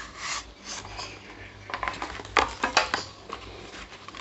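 Cardboard packaging being handled: the ear-tip tray is slid and set back into its box. A soft rustle at first, then a run of sharp taps and scrapes in the middle.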